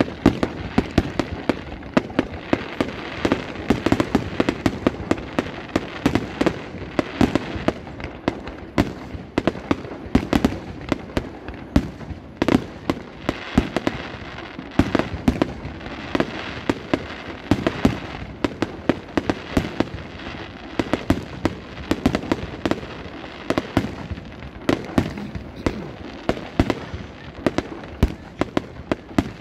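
Aerial fireworks display: a dense, continuous barrage of shell bursts, a rapid run of sharp bangs several a second, some louder than the rest.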